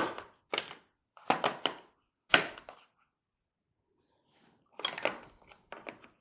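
Loose chrome sockets and wrenches in a mechanics tool set clinking and clattering against each other as they are handled, in several short bursts with a pause of over a second partway through.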